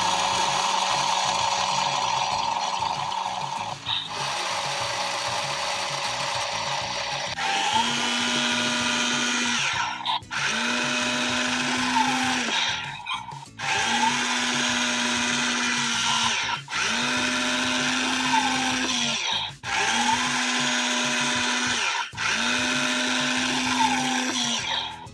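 Remote-control CAT Mighty Machines toy forklift running: a loud, steady motor whir mixed with its electronic engine sound effect. From about seven seconds in, it goes in six repeated runs of about two and a half seconds each, stopping briefly between button presses.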